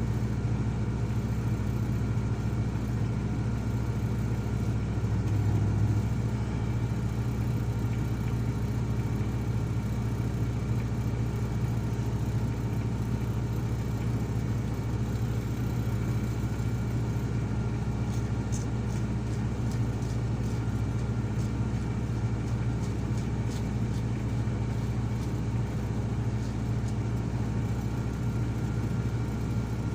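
Komatsu PC220 excavator's diesel engine running steadily, with a brief swell about five seconds in and faint light clicks later on.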